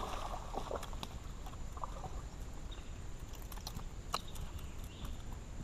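A hooked bass splashing at the water's surface at the start, followed by scattered light clicks and ticks as the fish is brought up and swung aboard.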